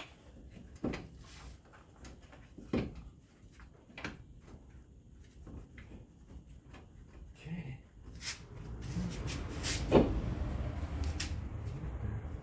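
Scattered clinks and knocks of hand tools and suspension or brake parts being handled, a few seconds apart, the loudest near the end, over a low rumble that builds in the last few seconds.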